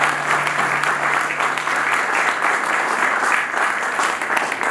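A roomful of people applauding with dense, steady hand clapping.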